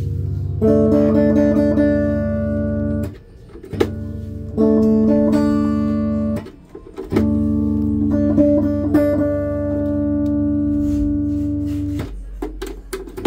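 Guitar chords played through the first channel of a Yamaha MG16XU mixer, each chord left ringing for a couple of seconds. There are short breaks about three seconds in, halfway through and near the end. The guitar is coming through the mixer as a test that the channel works.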